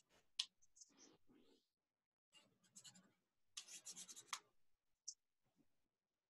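Chalk rubbed quickly back and forth on drawing paper in faint, short bursts of scratchy strokes, laying a halftone over a charcoal drawing; a sharp click about half a second in and another near five seconds.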